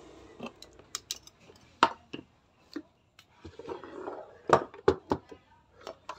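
Clatter of a plastic electronics enclosure and its cables with metal alligator clamps being handled on a wooden table: irregular sharp knocks and clicks, the loudest a few about halfway through.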